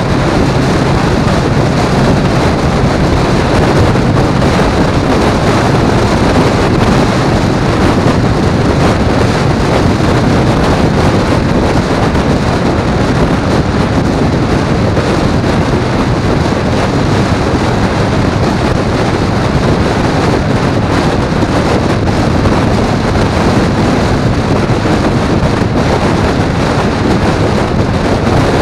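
Steady wind noise rushing over the microphone of a vehicle cruising at highway speed, with engine and road noise mixed in.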